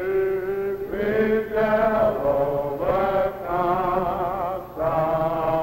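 Slow, chant-like singing, with long held notes that waver slightly, broken by short breaths about every second or so.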